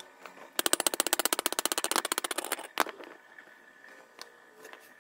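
Electric arc-welding arc crackling in a rapid, even train of about twenty pulses a second for about two seconds, then a single sharp snap.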